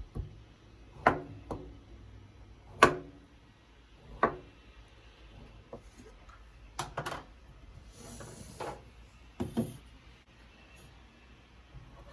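Kitchen handling sounds: about eight separate knocks and clacks as items are set down and moved, with a short rustle about eight seconds in.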